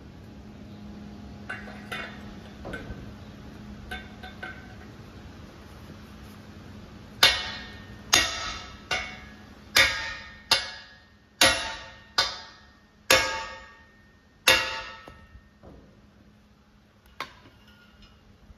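Sledgehammer striking a steel punch to drive out a rust-seized pin: a few light metal clinks, then about nine hard, ringing steel-on-steel blows roughly one a second, and a single knock near the end.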